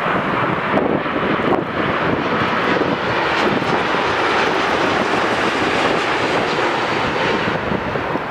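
Boeing 787 airliner's twin jet engines during landing: a steady rushing jet noise, its high hiss falling away near the end.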